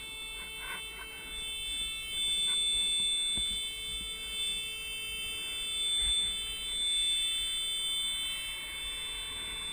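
A steady, high-pitched electronic tone sounds continuously like an alarm or buzzer, over rustling and handling noise of clothing and a helmet strap being worked close to the microphone.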